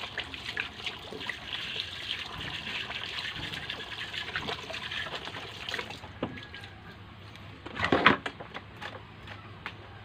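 Water running and splashing as a cutting board is rinsed at a stainless steel sink, for about six seconds with small knocks of handling. About eight seconds in comes a loud clatter as the board is set down in the sink.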